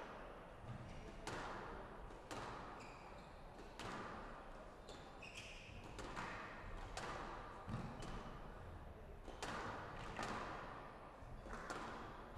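Squash rally: the ball cracks off the rackets and the walls in sharp hits about once a second, with a couple of brief squeaks of shoes on the wooden court floor.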